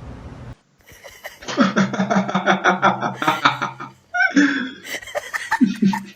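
A person laughing hard in quick repeated bursts, about five pulses a second, starting about a second and a half in, with more bursts of laughter and voice near the end.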